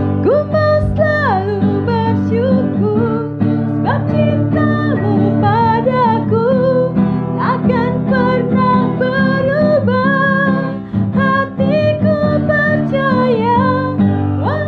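A woman singing an Indonesian worship song in a bright, gliding voice, accompanied by an acoustic guitar.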